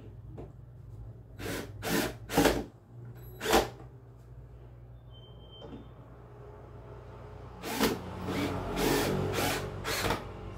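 Cordless drill driving screws to fix a shelf to the wall. It runs in several short bursts in the first few seconds, then in a longer run of about two seconds near the end.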